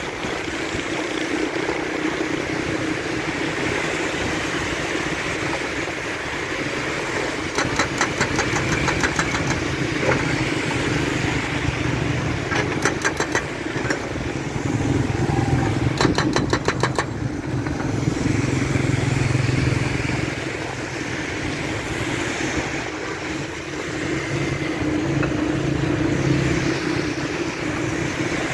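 Hydraulic breaker hammer on a Doosan wheel excavator pounding road surface in three short bursts of rapid blows, over a steady engine drone.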